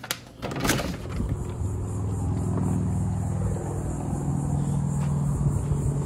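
A door clicks open about a second in, then a steady low mechanical hum runs on without change.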